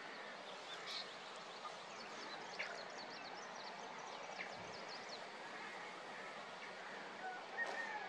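Outdoor ambience: a steady background hiss with faint small-bird chirps, single ones about a second in and near the end and a quick run of high chirps around the middle.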